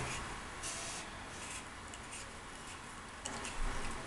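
Faint handling noise: light scraping and rustling of hands putting a cotton ball and magnesium shavings into an aluminium pie pan, with one sharp click right at the start.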